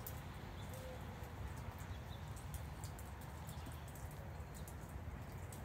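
Quiet outdoor background: a faint steady low rumble with light scattered ticks.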